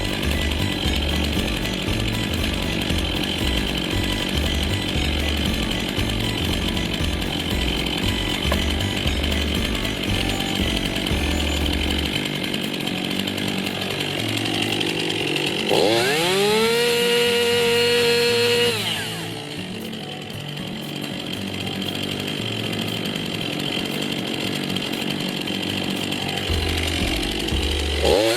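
Chainsaw engine running under load, as when cutting a log into rounds. Just after halfway it revs up sharply to a high, steady whine for a few seconds, then drops off suddenly when the throttle is released. It revs up again right at the end.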